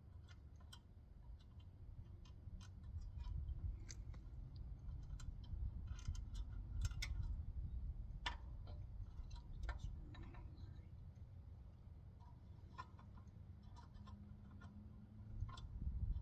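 Scattered, irregular light clicks and taps over a low rumble.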